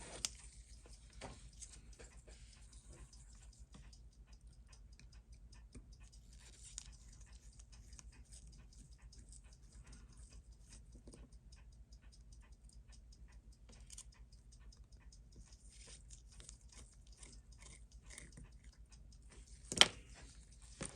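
Faint, irregular small clicks and taps of watchmaker's tools on the parts of a watch being taken apart, with one sharper tap near the end, over a steady low hum.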